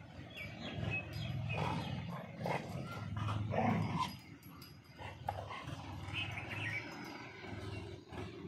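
Two dogs fighting, growling at each other. The growling is loudest about three to four seconds in and quieter after that.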